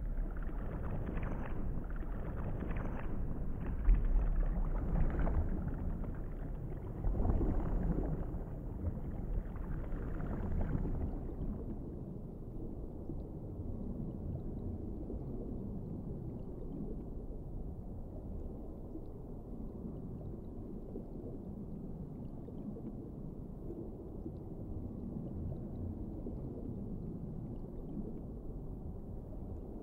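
Underwater ambience: a low, muffled rumble of water with slow swells. About eleven seconds in it changes to a steadier, duller rumble.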